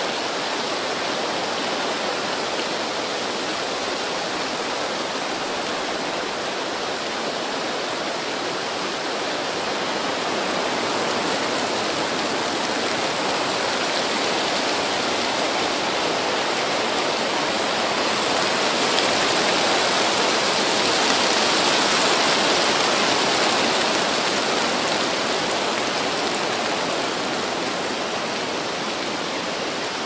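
Wind blowing through tree foliage, a steady rushing rustle that builds to a stronger gust about twenty seconds in and then eases off.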